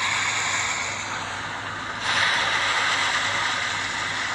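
Seaside ambience: a steady rush of wind and surf on an open beach that swells suddenly about two seconds in, with a faint low hum underneath.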